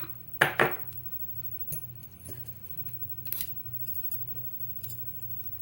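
Light metallic clicks and clinks from handling a disassembled padlock and its small metal parts, loudest about half a second in, then sparser single clicks, over a low steady hum.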